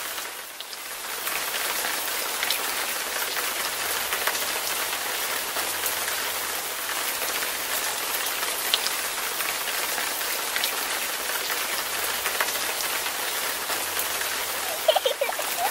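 Steady rain: an even hiss with scattered drop patter. It dips briefly about half a second in.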